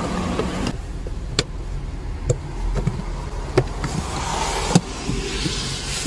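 A plastic under-dash trim cover being fitted back into place on a car: about four sharp clicks and knocks as it is pushed home, with some rustling, over a steady low rumble.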